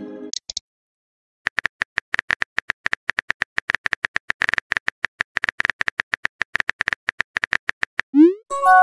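Smartphone keyboard tap clicks in a rapid, irregular run of several short clicks a second as a message is typed. Near the end a short rising swoosh and a chime sound as the message is sent and appears.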